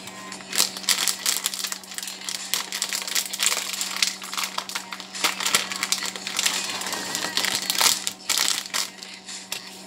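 Plastic snack packet crinkling and crackling as it is squeezed and worked open, with chocolate-covered raisins tipped out of it into a plastic mixing bowl. A steady low hum runs underneath.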